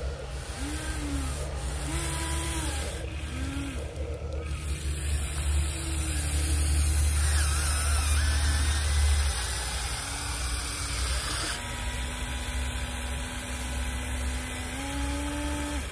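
Electric motors of a Huina 1593 RC excavator whining in short spurts that rise and fall in pitch as the boom, arm and bucket move. Near the end one motor holds a longer steady whine that then steps up in pitch. A steady rushing noise runs beneath.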